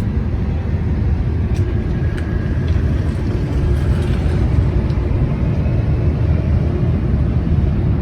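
A steady low rumble with no clear pitch, with a few faint light clicks over it.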